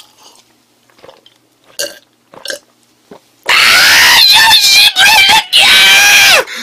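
A man lets out three loud, strained cries of disgust, starting about halfway in, after swallowing a drink he finds revolting. Before them there are only a few faint clicks.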